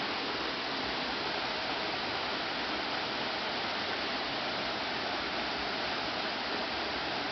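Steady rush of flowing water from a shallow, rocky stream, even throughout with no distinct splashes standing out.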